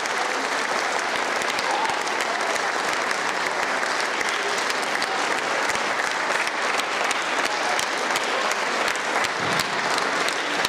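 Audience applauding, a steady round of clapping from a large crowd.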